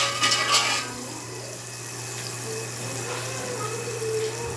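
A metal utensil scrapes and spreads butter across a ridged grill pan for about the first second. Then the melted butter sizzles steadily on the hot pan.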